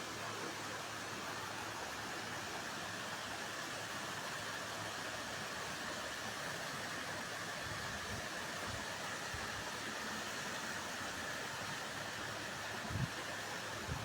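Steady, even rushing hiss of outdoor background noise, with a few low thumps, the loudest about 13 seconds in.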